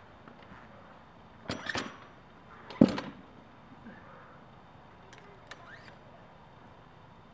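Bumper plate being loaded onto a barbell sleeve: a few metal clanks about a second and a half in, then one loud clunk just before three seconds as the plate seats, followed by a few faint light ticks.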